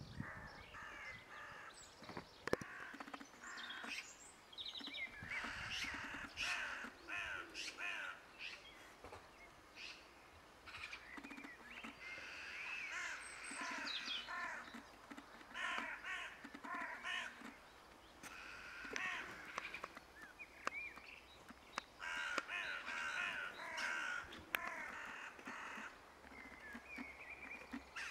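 Crow-family birds calling again and again with harsh caws and chatter, mixed with some higher chirps. A sharp tap stands out about two and a half seconds in.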